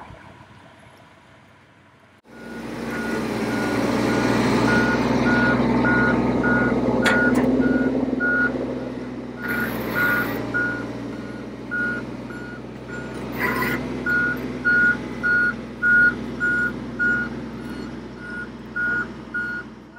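Fire truck engine running with a backup-style warning beeper sounding about twice a second; a few short bursts of noise break in partway through.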